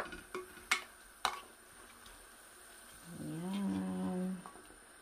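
A black kitchen spatula knocks against a stainless steel cooking pot about four times while shifting braised pork hocks in the broth. About three seconds in comes a drawn-out vocal sound held at one even pitch for over a second.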